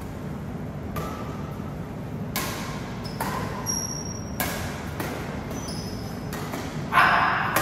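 Badminton rally: sharp racket strikes on the shuttlecock, roughly one a second, with brief high squeaks of shoes on the court floor and a louder burst near the end.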